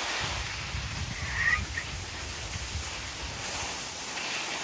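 Wind buffeting the microphone as an uneven low rumble, with one short high call about a second and a half in.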